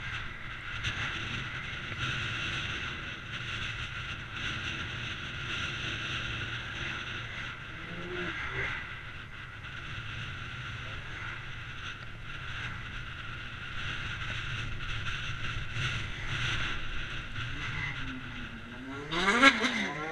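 Ride noise from a bicycle on a bumpy, ridged tarmac cycle path: steady hiss and rumble with faint repeated knocks as it rolls over the ridges. A brief, loud squeal that slides in pitch comes near the end as the bike reaches a junction.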